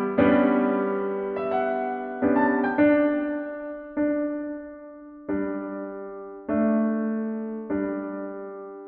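Slow, gentle solo piano music, a chord struck roughly every second and each one fading away before the next.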